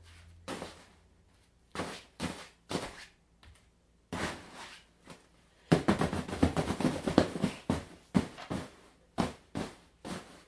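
Hits on stuffed animals: a few separate soft blows, then a rapid flurry of hits about halfway through, then several more single blows.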